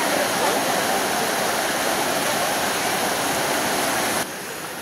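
Floodwater rushing fast over a road in a steady, loud noise of moving water. About four seconds in it drops suddenly to a quieter, duller water sound.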